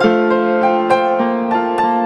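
Background piano music: a slow melody of single notes over held notes.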